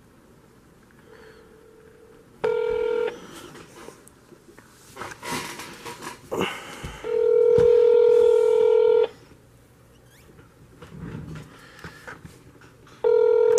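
Smartphone on speakerphone placing an outgoing call: a short tone, then the ringback tone ringing twice, each ring a steady two-second tone with about four seconds' gap, and some handling rustle in between.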